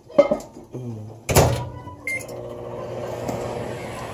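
A microwave oven is shut, set and started: a couple of knocks and a thud, a short beep about two seconds in, then the oven running with a steady hum.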